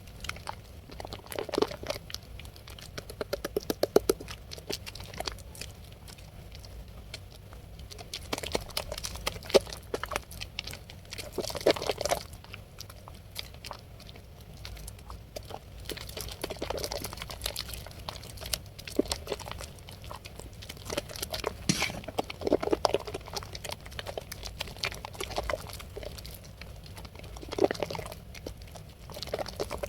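Wet blue Medicare bar soap being rubbed into a lather, giving wet squishing and fine crackling that come in repeated bursts every few seconds.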